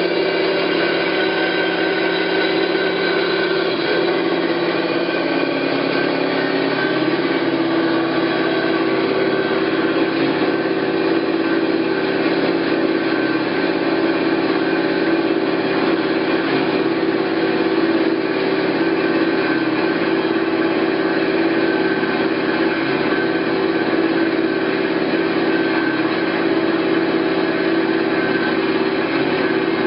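Hyd-Mech V-18 Series 2 vertical bandsaw running: a steady machine hum with several held tones under a whir. About seven seconds in, the main tone drops slightly in pitch.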